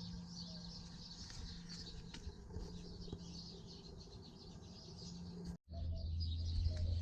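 Faint background with light high chirping and a low steady tone. About five and a half seconds in, the sound cuts out completely for a moment as the gimbal-mounted camera loses power, then comes back with a steadier low hum.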